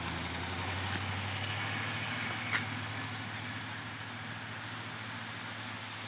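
A 1966 Cadillac Fleetwood 75's 429 V8 and its tyres on the wet road, fading steadily as the car drives away. There is a single short click about two and a half seconds in.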